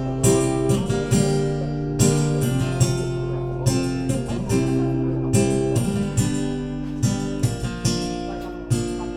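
Acoustic guitar playing a song's instrumental introduction, a run of chords picked and strummed several times a second, with no singing yet.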